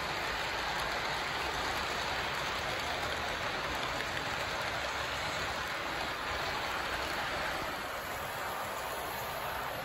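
Model train cars rolling along the track close by: a steady rattling hiss of small wheels on the rails, a little softer near the end.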